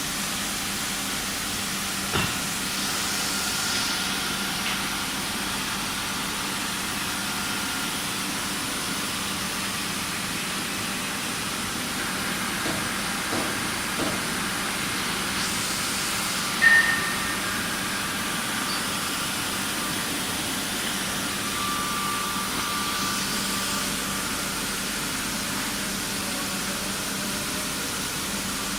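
UT.MA P 20 CNC knife profiling and sharpening machine running with a steady hiss and a low hum. Thin higher tones come and go, and a few short sharp clicks are heard, the loudest about two thirds of the way through.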